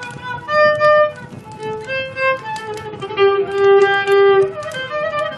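Instrumental passage of Turkish fasıl music: a violin plays the melody, with gliding notes and one long held note in the middle, over plucked oud and cümbüş.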